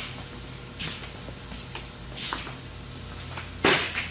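Stacked plastic weight buckets being lifted off a glass railing panel: a few short scrapes and knocks, the loudest and sharpest near the end, over a low steady hum.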